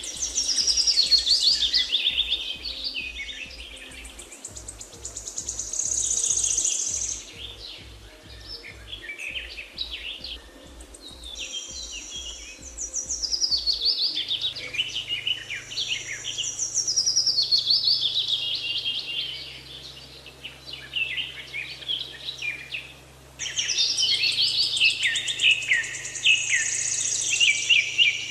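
Songbirds chirping and singing in repeated bursts of quick high trills and chirps, a few seconds apart, over faint low music tones.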